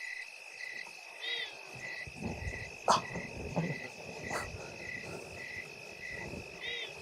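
Recorded night-time ambience: crickets trilling steadily with a chirp about twice a second, and a frog calling twice. Two sharp knocks come in the middle.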